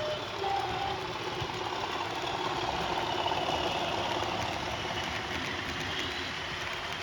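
Sound-fitted model Class 37 diesel locomotive: its onboard speaker plays a steady diesel engine sound as it runs on the layout.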